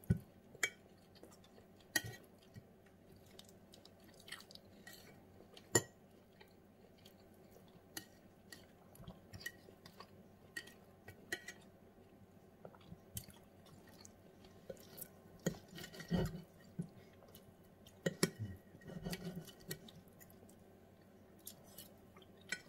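Knife and fork cutting braised pork on a plate, giving scattered sharp clicks and scrapes of metal on the plate, with chewing between.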